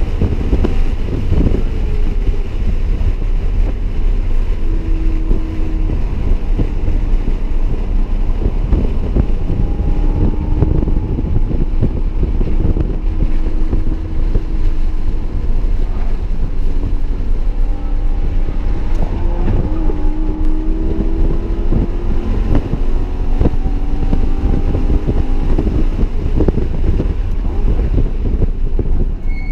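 BMW E92 M3's 4.0-litre V8 with an aftermarket X-pipe exhaust, heard from inside the cabin at track speed: the engine note rises and falls in pitch as it is driven hard, over a heavy low rumble of road and wind noise.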